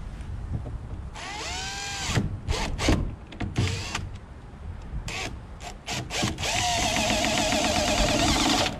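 Cordless drill driving screws: a short whirring run that speeds up and slows down, several quick blips, then a steady run of about two seconds that cuts off near the end.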